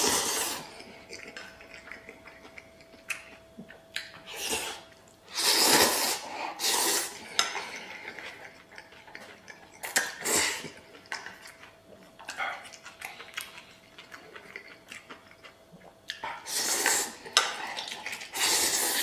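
Big mouthfuls of stir-fried noodles slurped in repeated noisy bursts a few seconds apart, the loudest about six seconds in and again near the end. Chopsticks clink against a stainless steel bowl, with chewing between the slurps.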